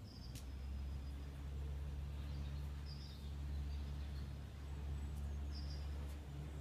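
Birds chirping a few times, short high calls over a steady low rumble of background noise, with one sharp click just after the start.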